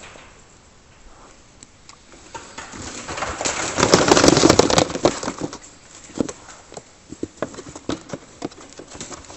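Trapped wild pigs grunting, loudest in a run about four seconds in, followed by scattered clicks and rustling as they move about the trap.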